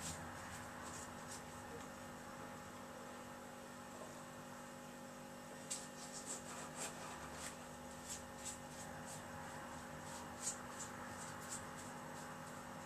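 A steady low electrical hum, with a scatter of faint clicks and small scrapes through the second half as stones are set and pressed into sand and gravel in an empty glass tank.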